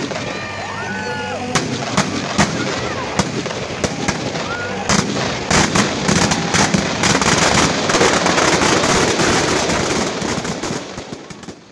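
Firecrackers packed inside a burning Ravana effigy going off: scattered sharp bangs at first, building about five seconds in to a dense, rapid crackle of explosions that then dies away near the end.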